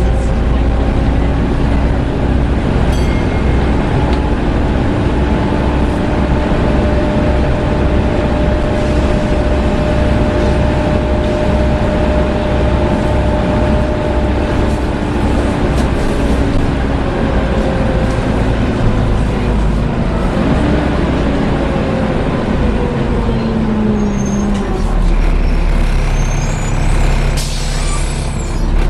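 Volvo B7TL double-decker bus heard from inside while on the move: a steady engine rumble under the loud hoovering whine of its engine cooling fan. The whine holds steady and then falls in pitch as the bus slows in the second half. A short hiss of air comes near the end.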